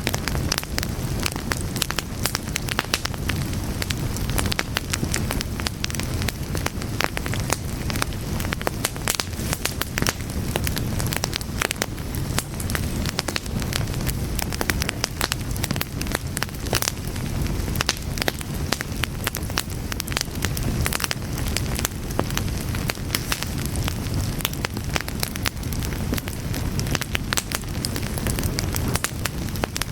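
Fire burning, with many irregular sharp crackles and pops over a low, steady rumble.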